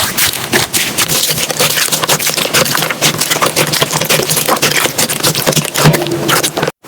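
Slime being squeezed and poked by hand, a dense stream of quick crackles, pops and squelches that cuts off abruptly just before the end.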